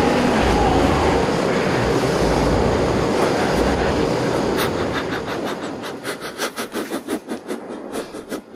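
A loud, dense rumble that thins about halfway through into a fast, uneven clatter of sharp clicks, about three or four a second.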